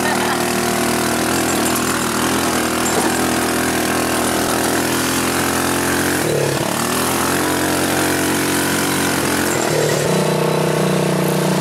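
Off-road buggy's engine running as it is driven along a dirt trail. Its pitch rises at the start, dips about six seconds in and climbs again, then steps up to a steadier, higher note near the end.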